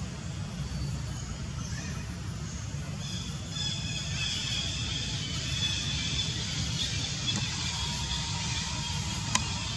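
Outdoor forest ambience: a steady low rumble, with a layer of high thin buzzing tones that sets in a few seconds in and carries on, and one sharp click near the end.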